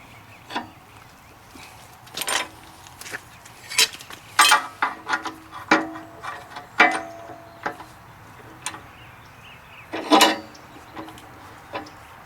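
Steel clamps being handled and set on a metal part: irregular clanks and knocks, several with a short metallic ring, the loudest about four and a half and ten seconds in.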